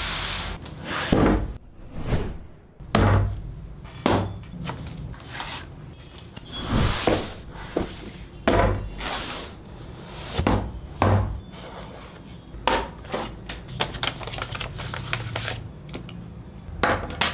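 Cardboard laptop box being opened and unpacked by hand: irregular thuds and knocks of cardboard on a tabletop, with scraping and rustling of the box and packing sleeve between them.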